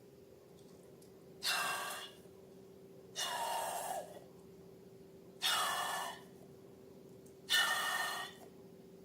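Four short, breathy rushes of air about two seconds apart, each starting suddenly and fading within a second, over a faint steady hum.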